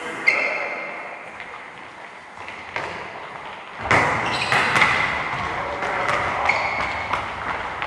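Soccer ball being kicked and bouncing, a few thuds, with short high squeaks in between.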